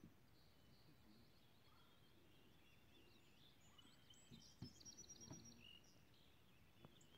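Near silence: faint outdoor ambience with distant birds chirping, including a quick trill of rapid high notes around four to five seconds in, with a couple of soft low thumps.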